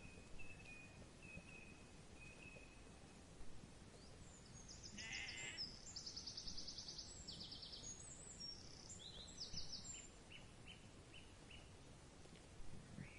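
A single faint sheep bleat about five seconds in, quavering. High chirps and trills of small birds run alongside it through the middle of the stretch.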